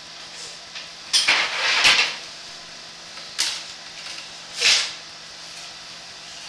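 Sewer inspection camera's push cable being fed through the toilet closet flange into a 4-inch sewer pipe, giving three short hissy scraping bursts about a second in, at about three and a half seconds and just before five seconds, over a faint steady hum.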